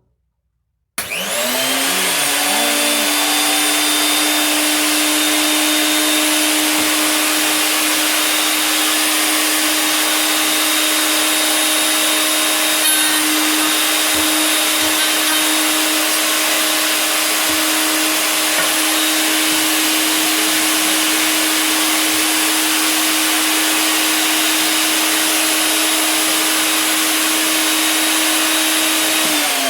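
A 1 3/4 HP router in a router table switched on about a second in, whining up to speed, running steadily with its high whine, then switched off near the end and winding down in pitch.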